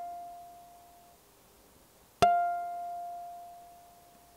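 Flight Voyager tenor ukulele playing an artificial harmonic: the F fretted on the E string's 1st fret, sounded an octave higher by touching the string at the 13th fret. The tail of one harmonic dies away in the first second, then a single new one is plucked about two seconds in and left ringing, fading slowly.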